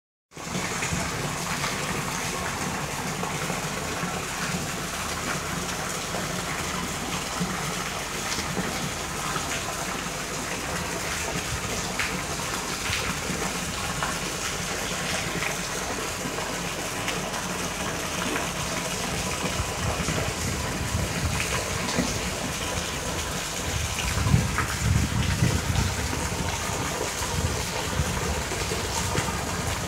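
Steady rushing water noise, with a louder low rumble between about 24 and 26 seconds in.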